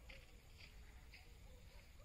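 Near silence outdoors, with a few faint short high chirps.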